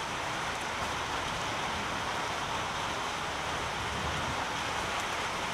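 Steady rain falling, an even hiss loud enough that one has to talk loudly to be heard over it.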